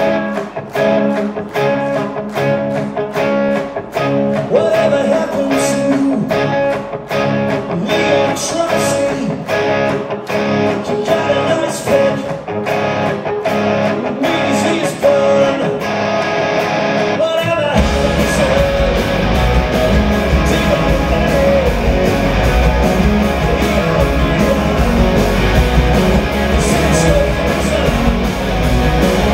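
Live hard rock band playing loudly: an electric guitar riff over a steady beat, then about two-thirds of the way through the bass and full drums come in and the whole band plays at full volume.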